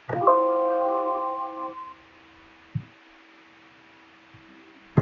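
Windows system alert chime, a short chord of several tones that fades out over about a second and a half, signalling a warning dialog box. A couple of soft clicks follow later.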